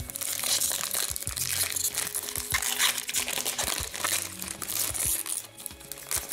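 Shiny foil wrapper of an Upper Deck Series 2 hockey card pack crinkling in the hands as it is peeled open, over background music.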